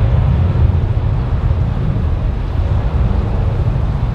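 Low, steady rumble of jet airliner engines, mixed with wind buffeting the microphone.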